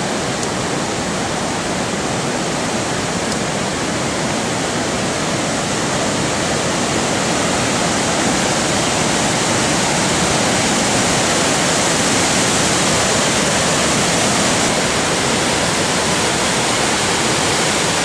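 Large waterfall in monsoon flood: a dense, steady rush of falling water that grows slightly louder about a third of the way in.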